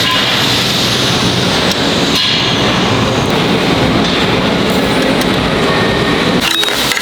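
Loud, steady machine noise from sheet-metal shelf fabrication in a workshop, with a few sharp knocks near the end.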